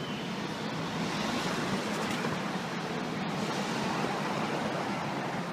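Steady city street noise: a hum of traffic and engines under a broad hiss, growing a little louder about a second in.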